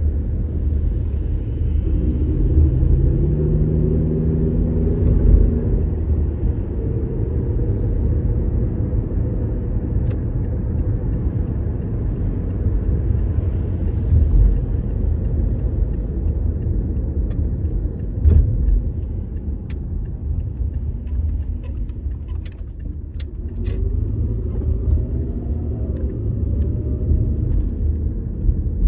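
Car driving, heard from inside the cabin: a steady low road and engine rumble, with the engine note rising as the car accelerates about two seconds in and again near the end. A few short sharp clicks come about two-thirds of the way through.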